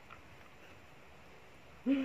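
A woman's short closed-mouth "mmm" hum near the end, made while chewing a mouthful of food. Before it there is only faint room noise.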